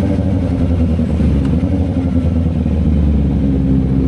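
Kawasaki Ninja ZX-4RR's 399 cc inline-four engine running through an SC Project exhaust, holding a fairly steady engine speed.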